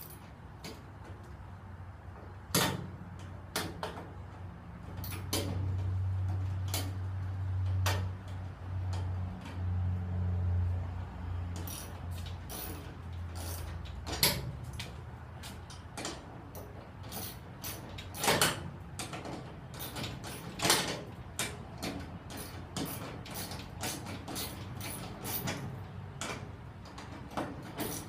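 Socket wrench ratcheting as a bolt is tightened through a metal garage door. It gives scattered sharp clicks that turn into a quick, fairly regular run of ratchet clicks in the second half, with a low hum in the first half.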